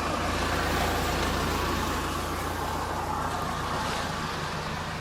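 Mahindra Thar off-road vehicle running, a steady low engine drone under an even wash of road and tyre noise, easing off slightly toward the end.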